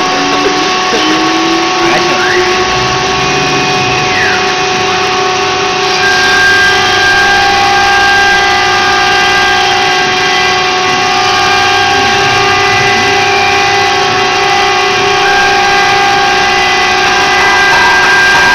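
LIMAC R3000D CNC router running, a steady, loud machine whine made of several tones. The main tone climbs over the first couple of seconds as the spindle comes up to speed, then holds. A few short gliding whines sound near the start.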